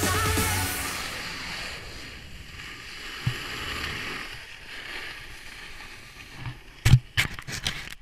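Background music fades out in the first second, leaving a steady rush of wind and snow noise on an action camera carried down a ski slope. There is a single thump about three seconds in and several sharp knocks against the camera near the end.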